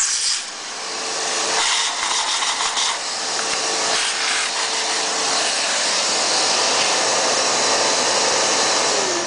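Shop vacuum running steadily, its hose held over a cylinder head's valve port to suck out the metal filings and chips left from cutting the valve seat.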